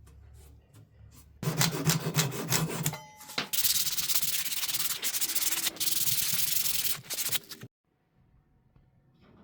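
Wood being hand-sanded: abrasive rubbed rapidly back and forth over a wooden piece. It starts about a second and a half in, turns to a steadier broad hiss from about three and a half seconds, and cuts off abruptly near the end.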